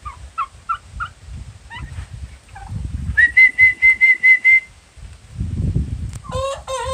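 Poultry calling: a young rooster that has only just begun to crow, with turkeys. Short high notes come first, then a rapid pulsing call about three seconds in, and another wavering call near the end.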